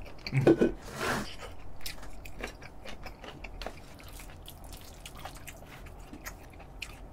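Close-miked eating: chewing and mouth sounds of a man eating rice, with small clicks of wooden chopsticks against a ceramic bowl. A short hum and a breathy exhale come about half a second to a second in.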